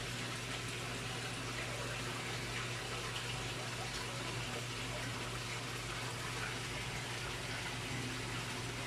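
Water running and splashing steadily into a fish pond, as from a filter return, with a low steady hum underneath.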